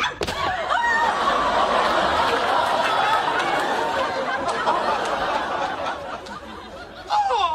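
Sitcom studio audience laughing hard at a pratfall gag, the laughter dying down near the end.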